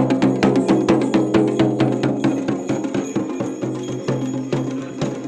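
Traditional devotional procession music: fast, evenly repeated drum strikes over a steady droning melody, growing a little quieter.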